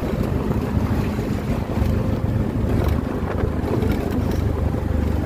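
Auto-rickshaw engine running steadily on the move, with wind and road noise from the ride.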